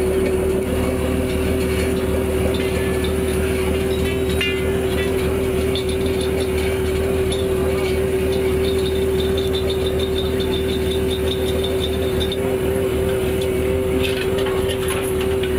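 Fishing cutter's diesel engine running steadily under way, a constant drone with a strong hum. A brief rattle of chain about four seconds in.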